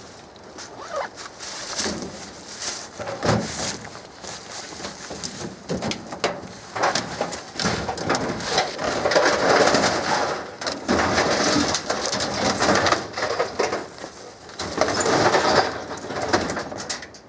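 Chickens clucking and squawking in an irregular, fairly loud run of calls.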